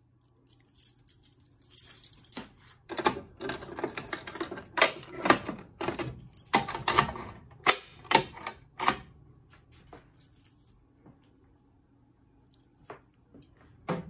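A key ring jangling and a key clicking and rattling in the lock of a Simplex fire alarm pull station as it is reset, a quick run of sharp metallic clicks lasting several seconds. After a quiet stretch, a couple of single clicks come near the end.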